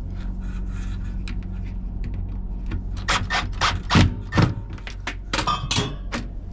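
Handling noise inside a stainless steel cooler cabinet: a run of knocks, clicks and rubbing from about three seconds in as a light bar and a cordless drill are moved into place. A steady low hum lies underneath.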